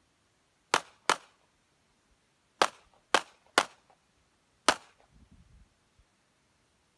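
Six pistol shots: a quick pair about a second in, three more about half a second apart, then a last single shot, each a sharp crack with a short echo.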